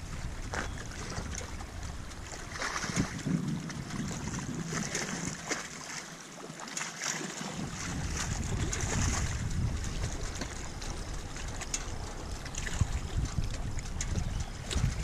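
Wind buffeting the microphone in uneven gusts, with small lake waves lapping at the rocky shore.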